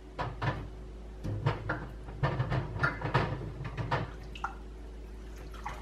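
Kitchen items being handled on a counter: a quick run of light knocks and clatters over a faint steady hum, stopping about four seconds in.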